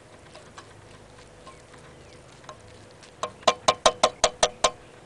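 A fork tapping quickly against a metal skillet, about eight taps at roughly five a second, each with a short metallic ring. The taps start about three seconds in.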